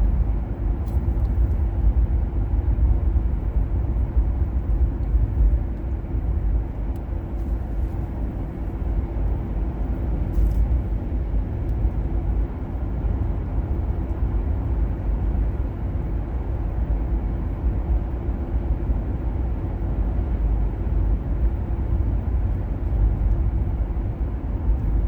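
A car driving along a road: a steady low rumble of engine and tyres, with a faint steady hum above it.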